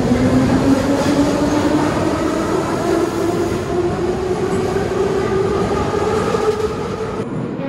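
Metro train accelerating: its traction motors whine steadily higher in pitch over the rumble of the wheels.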